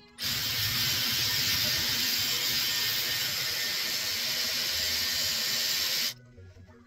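Dyson Airwrap Multistyler blowing hot air through a curling barrel wound with hair: a steady, loud rush of air that starts abruptly just after the start and cuts off about six seconds in.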